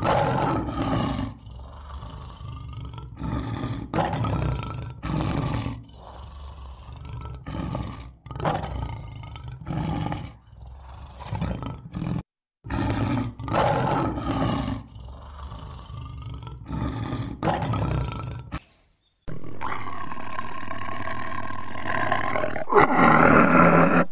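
A male lion roaring in a long bout of deep roars and grunts with short pauses between them. After a brief silence, a tiger growls and rises to a loud snarl near the end.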